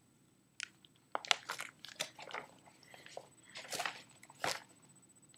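Irregular clicks and crunches of a fired EpiPen auto-injector being pressed down hard into a paper notebook, its needle forced into the pages until it bends.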